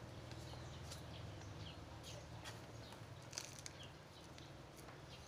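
Small birds chirping, short falling chirps repeated throughout, over a low steady hum that fades toward the end. Soft ticks of potting mix are sprinkled by hand into a small plastic pot, the sharpest about three and a half seconds in.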